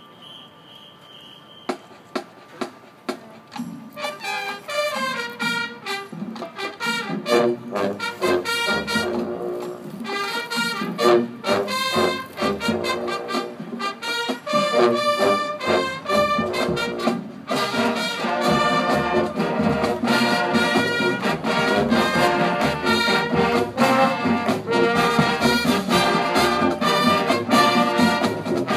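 High school marching band playing its field show: a few sharp percussion hits about two seconds in, then brass and drums enter together, the sound growing louder and fuller about eighteen seconds in.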